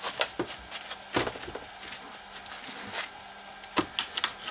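Plastic laptop battery shell cracking and clicking as it is pried open with a hand tool, a handful of sharp cracks, loudest about a second in and near the end.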